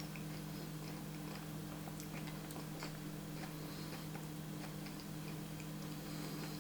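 Faint chewing of a grilled peanut butter, jelly and banana sandwich: small irregular crunches and mouth clicks from the toasted bread, over a steady low electrical hum.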